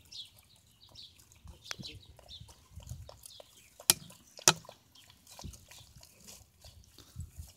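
Several puppies eating, with wet chewing and smacking clicks and the rustle of the plastic bag their heads are buried in. Two sharp clicks stand out about four seconds in.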